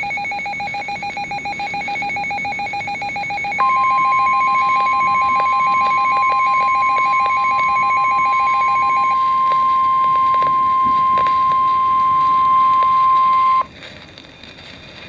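Emergency weather alert tones: a rapidly pulsing electronic beep, joined about a third of the way in by the loud, steady single-pitch weather radio attention tone. The pulsing beep stops about two-thirds of the way through, the steady tone cuts off abruptly near the end, and only faint hiss is left.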